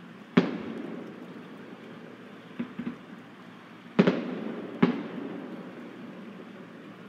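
Fireworks bursting: a loud bang about half a second in, a couple of fainter pops near the middle, then two more loud bangs close together about four and five seconds in, each loud bang trailing off in a rumbling echo.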